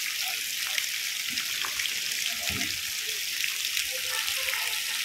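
Light rain falling steadily: an even hiss of fine raindrops with many small ticks.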